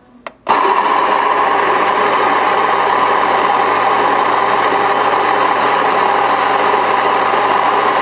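Baratza Vario-W flat-burr coffee grinder starting with a click about half a second in, then grinding coffee into a portafilter with a loud, steady whir that holds unchanged. It measures about 91–92 dB, the loudest of the grinders compared.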